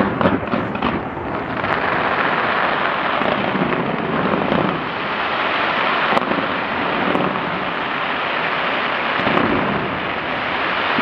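Fireworks display going off, with several sharp bangs in the first second, then a dense, continuous crackling of many shells bursting.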